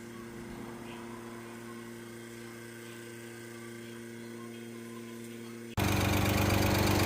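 A steady machine hum with several constant tones, then, suddenly near the end, a much louder engine running at idle, the Suzuki Jimny's engine.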